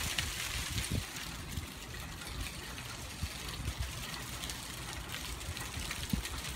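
Dry leaves rustling steadily in the wind, a continuous hiss with a few small ticks, over uneven low wind rumble on the microphone.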